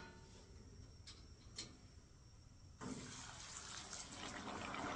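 Two light clicks from the wire fry basket. Then, about three seconds in, a basket of French fries goes into hot oil in a propane deep fryer, and the oil starts sizzling and bubbling, growing steadily louder.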